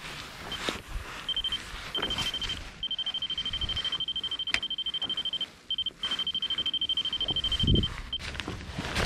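Fish finder alarm beeping: a high electronic tone pulsed about ten times a second, in several runs with short breaks, the longest lasting about three seconds. A low thump comes near the end.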